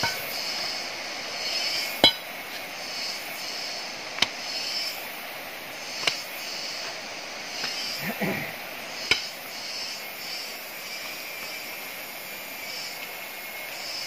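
Footfalls and a few sharp knocks or clinks while walking down a stony forest trail, the loudest about two seconds in and others spread through. Steady insect chirring goes on underneath.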